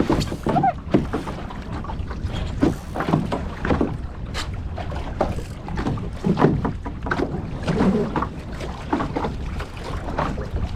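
Water splashing and slapping irregularly against a small sailing boat's hull as it moves, with wind rumbling on the microphone.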